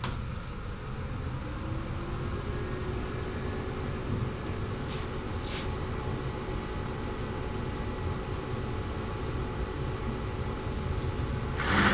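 AHP TIG welder switched on: its cooling fan spins up, the pitch rising over about two seconds, then runs steadily over a low electrical hum. There are a few faint clicks and a short hiss near the end.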